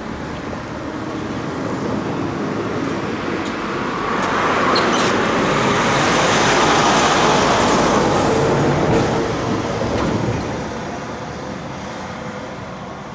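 A vehicle passing close by: a steady rushing noise that builds, is loudest about midway and fades near the end, with a brief faint squeal about five seconds in.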